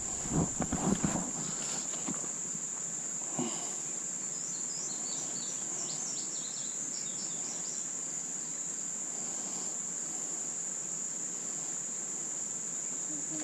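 Insects trilling in a steady, unbroken high-pitched drone, with a run of quick high chirps partway through.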